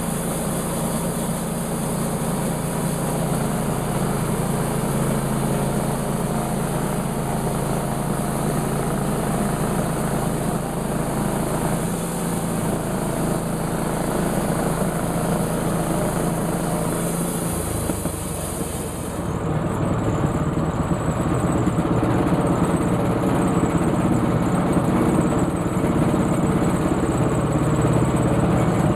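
Sawmill engine running steadily. About two-thirds of the way through, its note drops and it then runs louder.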